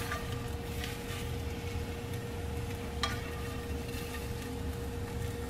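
Scrambled eggs scraped out of a nonstick skillet onto a plate: soft scraping, with a light tap of the utensil on the pan about three seconds in, over a steady low hum.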